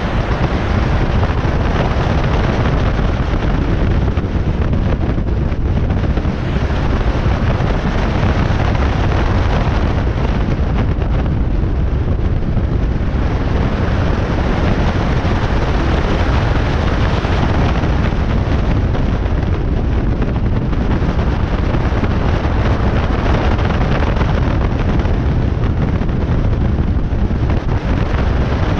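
Wind buffeting the microphone of an action camera mounted on the outside of a moving car: a steady, loud rush of noise, heaviest in the low end, with the car's running noise beneath it.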